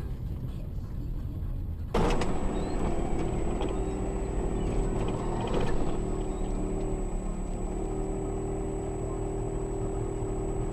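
A car's engine and road noise recorded from inside the cabin by a dash-cam microphone, a steady rumble under a thin, steady high whine. About two seconds in it cuts abruptly to another drive, which is louder.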